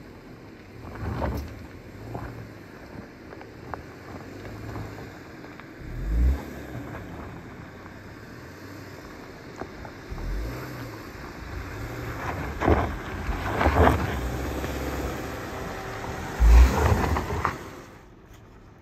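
Lifted Subaru Forester Wilderness driving past on a rocky dirt road, its engine and Falken Wildpeak all-terrain tyres crunching over gravel, loudest as it goes by in the last few seconds. Wind buffets the microphone throughout, and the sound drops away abruptly just before the end.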